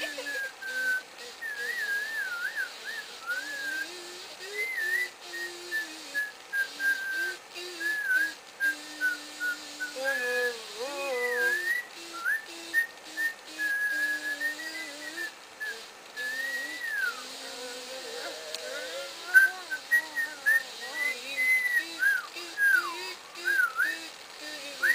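A person whistling a wandering tune, with a quieter low line of held notes moving beneath it.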